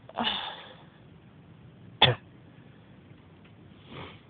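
A woman with a head cold coughs once, sharply, about two seconds in. A breathy exhale comes at the start and a softer breath near the end.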